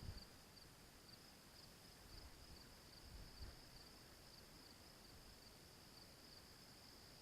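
Faint insects trilling: a steady, high-pitched, pulsing chorus, with a couple of soft low thumps.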